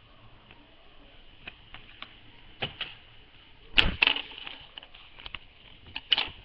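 Sheet of paper and a pair of scissors being handled on a wooden table: scattered taps and clicks, the loudest a knock a little under four seconds in, with another sharp pair near the end.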